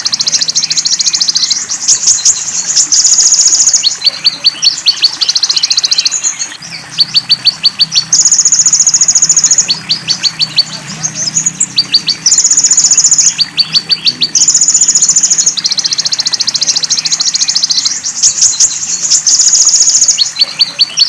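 Bird-training (masteran) track of konin, the kolibri ninja sunbird, with fill-in calls of golden grasshopper and cililin. High buzzy trills about a second long alternate with quick runs of sharp ticks, repeating throughout over a faint low steady murmur of water.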